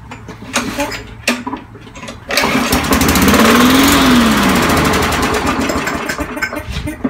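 A few clicks, then the Briggs & Stratton 158cc single-cylinder engine of a Yard Machine push mower is pull-started cold: it catches about two seconds in, runs for a few seconds with its pitch rising and then falling, and dies out.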